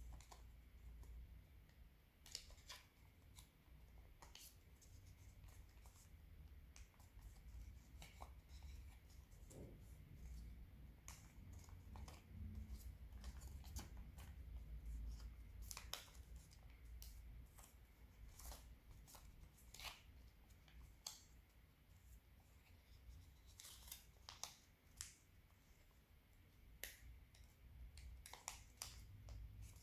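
Faint crinkling and crisp clicks of origami paper being folded and creased by hand, coming irregularly over a low background hum.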